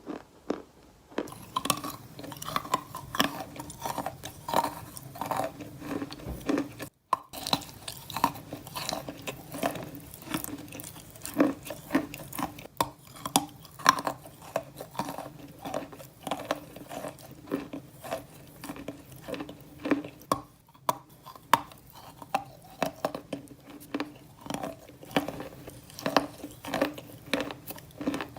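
Wet sand being crushed, a steady run of grainy crunches at about two or three a second, with a brief break about seven seconds in.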